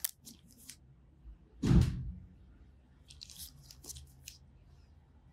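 Soft rustles, clicks and scratches from latex-gloved hands handling a foot and nail-polish tools, with one dull thump about two seconds in.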